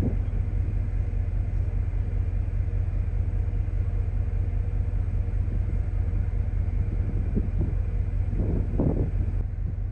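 Steady low rumble of a cruise ship under way, with wind buffeting the microphone. A few brief, fainter sounds rise over it near the end.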